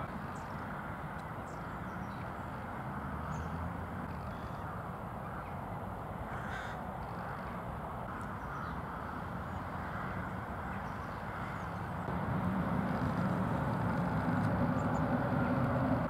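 Crows cawing over a steady background rumble; the low rumble grows louder about three-quarters of the way through.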